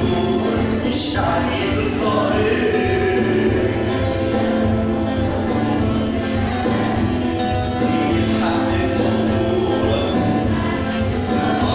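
Arabic Christian hymn sung by a male lead singer with a vocal group, over instrumental accompaniment.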